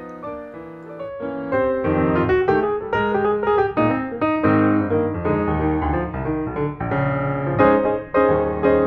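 Background piano music, a continuous run of notes that grows louder about a second in.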